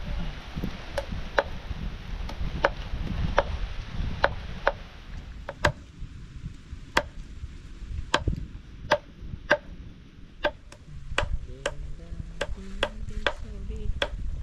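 Knife chopping on a wooden board: single sharp chops, roughly one a second, coming quicker in the second half, as birds are cut up for cooking.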